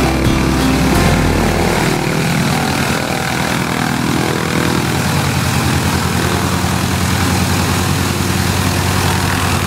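A North American Harvard trainer's Pratt & Whitney R-1340 nine-cylinder radial engine idling as the plane taxis, a rapid, even throb.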